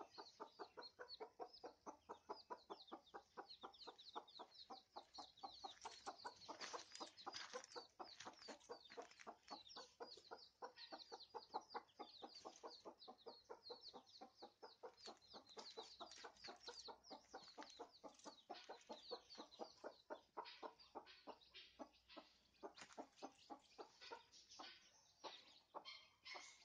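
Faint, continuous peeping of baby chicks, many short high calls following one another quickly, mixed with the soft clucking of the mother hen.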